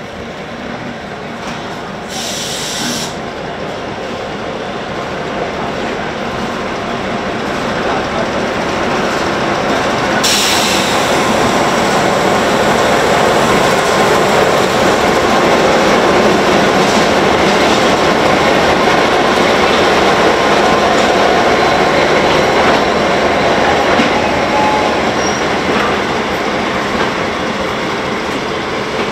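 Y-class diesel locomotive and its carriages rolling slowly into a station: engine running and wheels on the rails, growing louder as the locomotive passes and then easing a little as the carriages follow. Two short hisses, about two seconds in and about ten seconds in.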